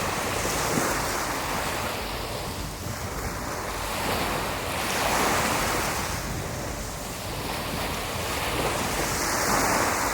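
Surf washing onto a sandy beach, the wash swelling and ebbing every few seconds, with wind buffeting the microphone.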